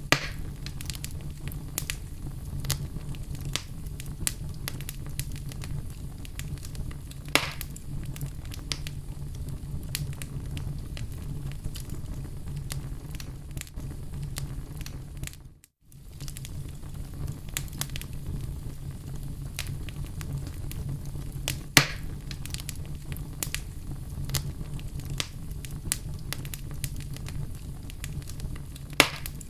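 Wood fire burning in a fireplace, crackling steadily with many small snaps and a few louder pops over a low, steady rumble. The sound cuts out for a moment about halfway through.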